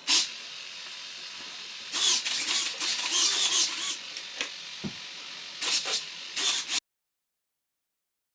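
Small RC model servos whirring and chattering in irregular bursts, twitching on their own right after the transmitter is switched on: the radio link is misbehaving, which the builder later blames on bunched-up receiver cables or a bad receiver. One short low knock near the middle; the sound cuts off abruptly to total silence near the end.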